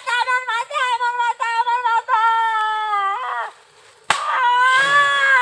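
A high-pitched voice wailing in long drawn-out, wavering tones. It breaks off briefly and a single sharp smack lands about four seconds in, then the wailing resumes.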